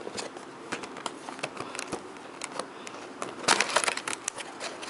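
Webcam packaging being opened by hand: scattered crinkles and sharp clicks, with a busy, louder flurry of rustling about three and a half seconds in.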